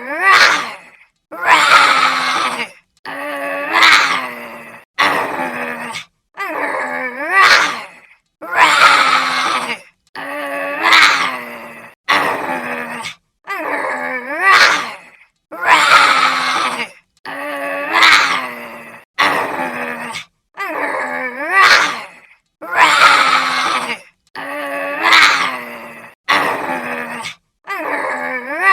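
Cute monster creature vocalization sound effect: a short pitched call that repeats about every two seconds, each one ending in a quick upward slide in pitch.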